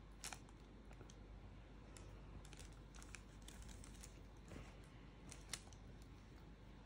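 Near silence: room tone with a few faint, scattered light clicks and taps from a small object and its packaging being handled.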